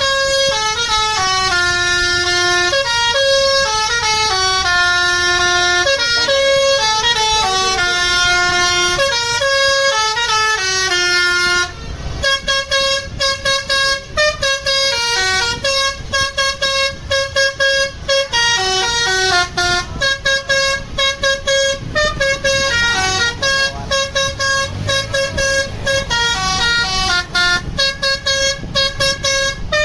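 Basuri multi-tone 'telolet' bus air horn playing a melody in stepped notes, held and smoothly joined at first, then from about twelve seconds in a fast run of short, clipped notes.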